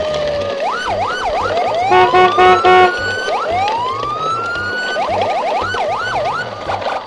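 Siren sound effects: a falling tone, then quick up-and-down wails and slow rising whoops, with a short run of loud beeping tones about two seconds in. Background music with a steady beat runs underneath.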